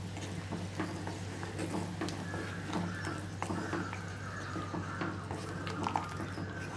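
Tamarind gravy simmering on low heat in a clay pot, with many small pops and clicks and the occasional scrape and tap of a wooden spatula stirring it, over a steady low hum.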